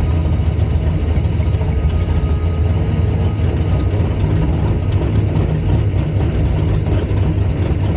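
Drag race car engine idling steadily, a deep, even rumble with no revving.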